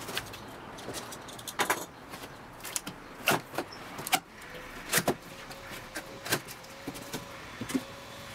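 Cardboard shipping box being opened by hand: irregular sharp scrapes, taps and crackles as the packing tape is cut and peeled and the cardboard flaps are pulled open.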